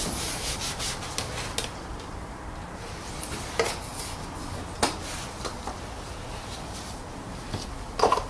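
A cloth rag wiping over a plastic engine cover in quick rubbing strokes, followed by a few sharp knocks as the oil funnel is handled and lifted out.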